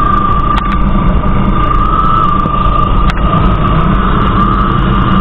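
Motorcycle engine running at a steady pace while the bike is ridden over beach sand, with a constant high whine over a dense low rumble and wind on the handlebar-mounted camera's microphone.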